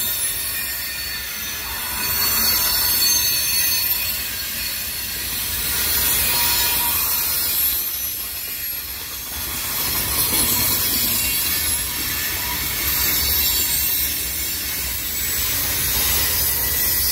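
Covered hoppers and tank cars of a long freight train rolling past close by: steady wheel-on-rail noise with a high squeal of wheels on the curve, swelling and easing every few seconds as the cars go by.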